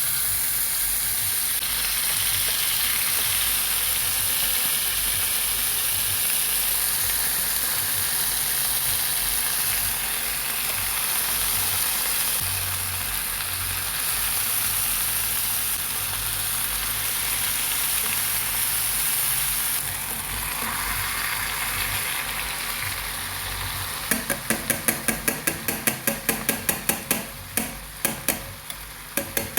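Chicken pieces sizzling as they fry in butter in a hot pan. Near the end a utensil starts stirring the pan, a rapid run of clicks at about four a second over the sizzle.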